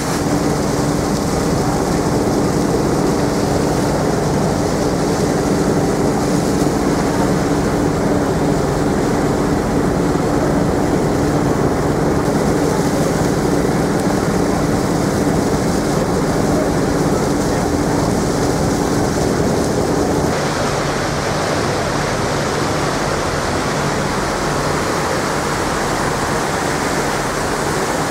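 Steady rush of a ferry's wake churning along the hull, over the low drone of the ship's engines. About twenty seconds in the mix changes and one steady tone in the hum drops out.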